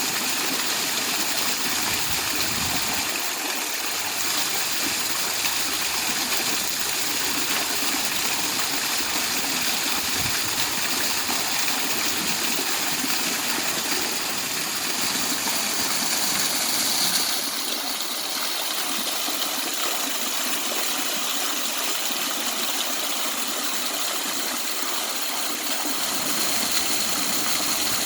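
Small waterfall splashing steadily, a continuous rush of falling water.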